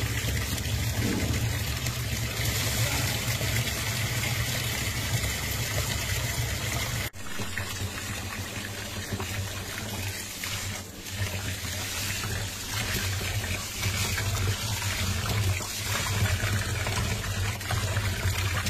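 Tap water running and splashing into a steel pot of rice, with the swishing of hands rubbing the rice grains in the water to rinse them. The flow breaks off sharply for an instant about seven seconds in.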